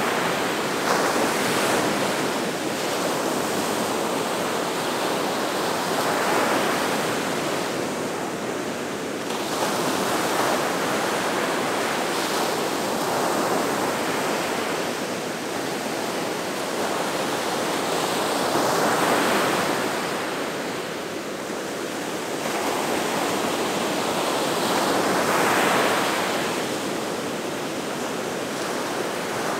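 Gulf of Mexico surf breaking on the beach: a continuous wash of waves that swells as each one breaks, about every six seconds.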